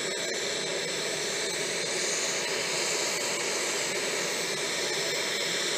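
Business jet's rear-mounted turbofan engines running: a steady hiss with a high whine, rising a little about two seconds in.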